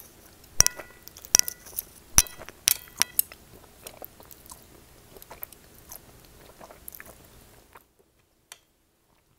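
Close-up eating sounds of rice noodles: slurping and chewing, with several sharp clicks of wooden chopsticks against a ceramic plate in the first three seconds, some leaving a brief ring. The sound drops to almost nothing about two seconds before the end.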